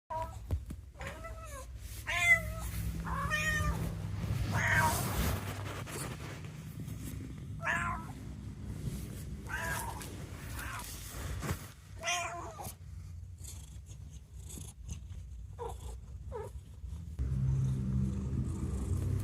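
Domestic cat meowing: about ten short, arching meows at irregular intervals over a steady low rumble.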